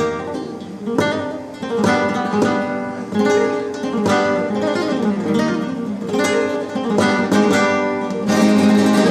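Solo flamenco guitar playing a falseta por soleá: plucked melodic runs broken by sharp strummed chords about once a second, ending on a loud, ringing chord.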